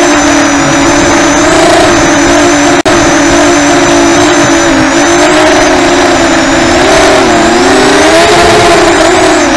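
Racing quadcopter's brushless motors and propellers, heard from its onboard camera: a loud, buzzing whine whose pitch wavers up and down as the throttle changes, with a momentary cut in the sound about three seconds in.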